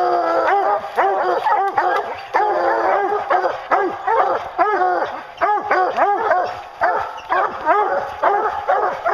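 Several hunting hounds barking treed on a black bear, their barks rapid and overlapping, several a second, with a few longer drawn-out bawls mixed in.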